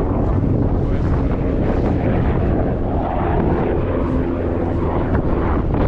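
Strong wind buffeting the microphone in a steady low rumble.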